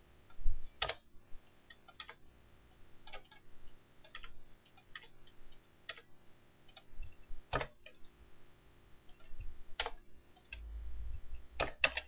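Isolated clicks of a computer mouse and keyboard while a text document is edited, roughly one a second, with a couple of quick double clicks near the end.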